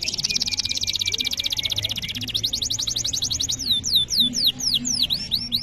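Domestic canary singing a continuous song of trills: a very fast high roll, then a slower run of falling notes about two seconds in, then a handful of long downward swoops. A fast trill starts again at the very end.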